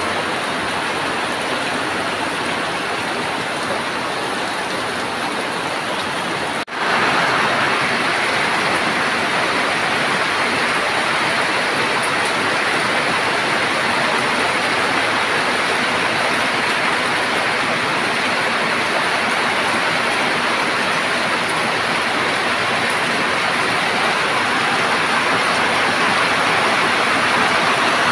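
Steady rain pouring down, a continuous even hiss. It breaks off for a moment about seven seconds in and then carries on slightly louder.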